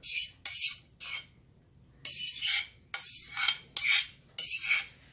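Metal fork scraping coleslaw out of a mixing bowl into a glass bowl: about seven short scrapes of fork against bowl, with brief pauses between strokes.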